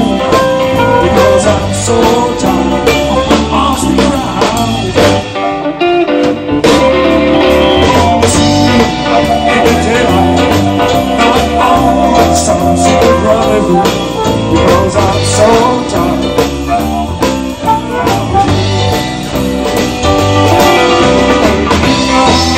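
Live blues band playing: electric guitar, bass guitar and drum kit with a harmonica, with a short break in the beat about six seconds in.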